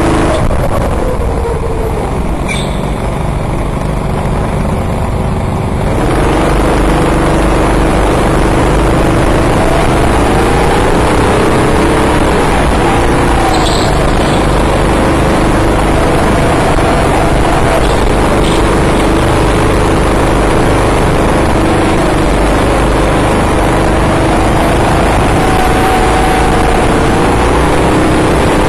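Small 6.5 hp four-stroke go-kart engines running, their pitch rising and falling with the throttle; the sound gets louder about six seconds in.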